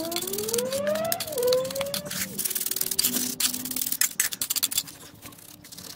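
Steel trowel scraping and packing a stiff sand-and-cement concrete mix under a steel baseplate, a run of short gritty scrapes. A drawn-out pitched sound rises and then falls in the first two seconds or so.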